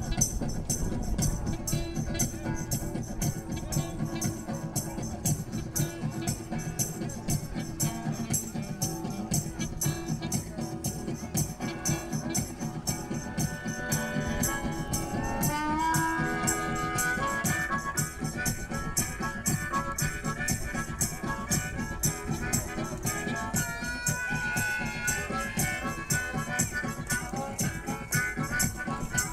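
Live music with a steady beat and a shaker keeping the rhythm. From about halfway a saxophone plays a melody over it.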